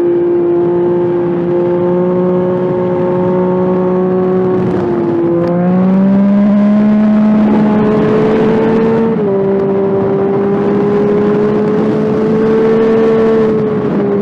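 Yamaha FZ-09/MT-09 inline three-cylinder engine running under load while riding at a steady pitch. The pitch dips and climbs again about five seconds in with a change of throttle, then drops slightly about nine seconds in. Rushing wind noise underneath.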